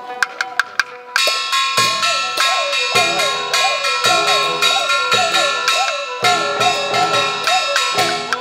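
Chinese traditional opera ensemble accompanying a puppet show: a few sharp clicks, then a gong and cymbal crash about a second in, followed by percussion strikes roughly once a second with a sliding, wavering melody over them.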